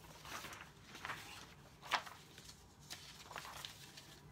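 Printer-paper template sheets rustling as they are handled and laid flat on a table: about five short rustles, the loudest about two seconds in.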